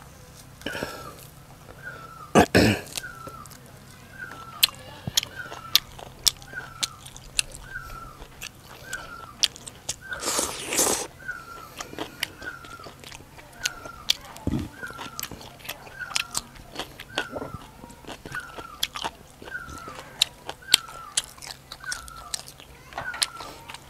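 Close-up chewing and crunching of crisp food, with many sharp crunches and two louder, longer crunching bites, one a couple of seconds in and one about ten seconds in. A short high chirp repeats steadily in the background, a little more than once a second.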